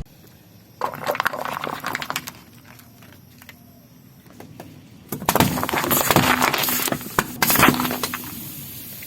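Things crackling and crunching as they are crushed under a car tyre: a short run of crackles about a second in, then a louder, denser stretch of crunching and cracking from about five seconds in.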